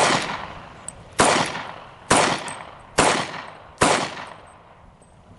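Five shots from a .40 S&W handgun, fired at a steady pace about a second apart, each with a fading echo.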